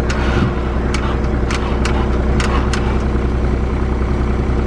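Subaru Impreza GC8's EJ20 turbo flat-four idling steadily, newly started after months standing. A run of sharp, irregular clicks sounds over it in the first three seconds.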